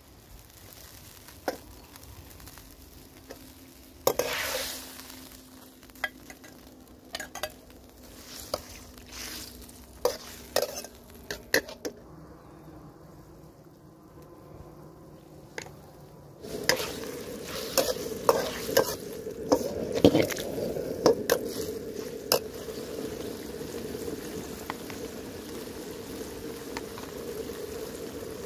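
Chicken stir-frying in a carbon steel wok: sizzling, with sharp clanks and scrapes of a metal ladle against the wok. A louder burst of sizzling about four seconds in; from just past halfway the sizzling becomes louder and steadier, with frequent ladle strikes, as the chicken cooks in its bubbling sauce.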